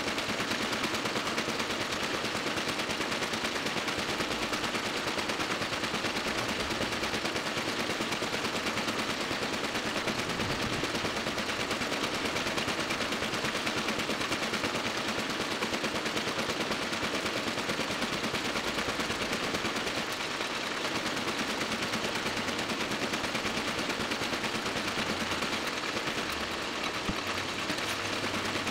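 Toko 810 small offset printing press running at speed, a fast, steady mechanical clatter as it feeds and prints sheet after sheet.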